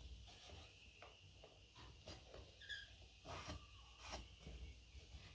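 Faint handling sounds of hands pressing and shifting a glued wooden box frame on a bench: a few light taps and rubs. A brief high chirp about halfway through.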